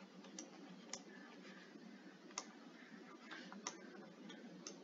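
Faint room tone with a handful of short, sharp clicks, the taps of a stylus on a tablet screen during handwriting.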